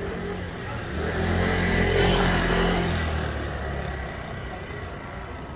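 A car passing close by on the street, its engine hum and road noise swelling to a peak about two seconds in, then fading away.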